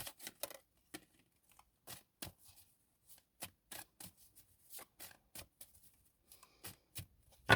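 Tarot cards being handled: a string of short, irregular card snaps and rustles, some twenty in all, with near silence between them.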